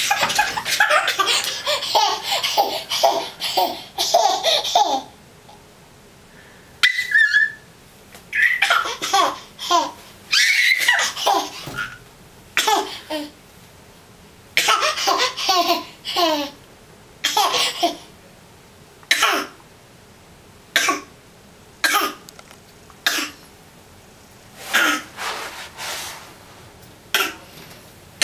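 A baby laughing at her reflection. A run of quick giggles comes in the first five seconds, then after a short pause come short single laughs every second or two.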